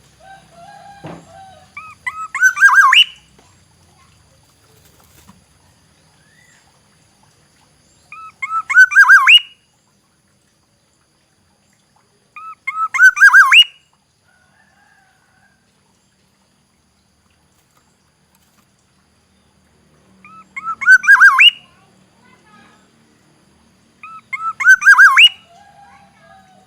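Black-naped oriole calling: five short phrases, each a quick run of clipped notes ending in a sharp rising whistle, repeated every four to eight seconds with silence between.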